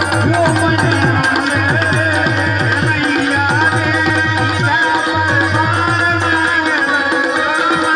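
Loud folk dance music through a PA system: rapid tabla-like hand-drum beats whose deep strokes slide down in pitch, under a wavering melody line.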